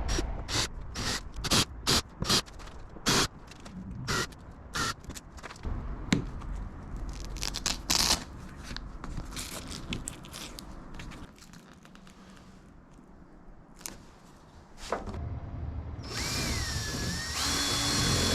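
Power drill drilling out the rivets that hold a car soft top's rear screen, in many short bursts, close together at first and then more spaced out. After a few quieter seconds the drill runs steadily near the end.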